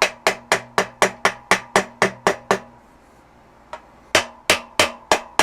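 A soft rubber-ended mallet tapping the bolts on a BMX bike's rear dropouts, in quick even taps about four a second. The tapping stops for about a second and a half midway, then starts again a little slower. The taps are nudging the rear wheel to set the chain tension.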